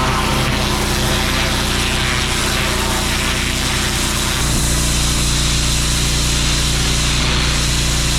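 Engine-driven pressure washer running steadily with the hiss of its water spray; the engine note shifts about four seconds in.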